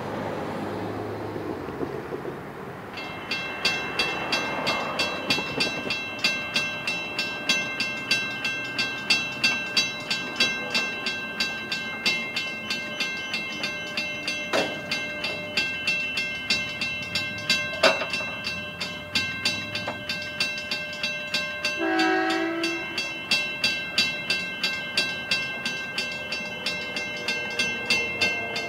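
Level crossing warning bells start about three seconds in and ring on at about two strikes a second. Two sharp knocks sound near the middle, and a short train horn blast comes about three quarters of the way through as the train approaches.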